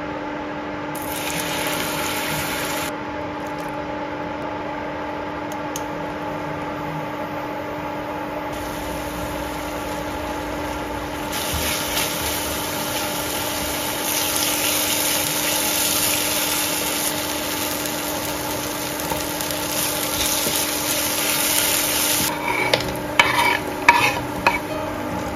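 Spice paste sizzling as it fries in oil in a ceramic frying pan and is stirred with a spatula, over a steady low hum. Near the end come a series of knocks and scrapes as cooked gizzard pieces are tipped into the pan off a wooden board.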